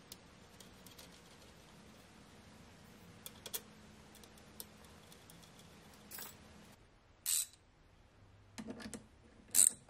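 Scattered faint clicks and clinks of small steel washers and lock nuts being fitted onto the bolts of a recliner's metal drive mechanism, with a couple of sharper taps near the end as a socket wrench is brought to the nuts. A faint low hum sits underneath and stops about two-thirds of the way through.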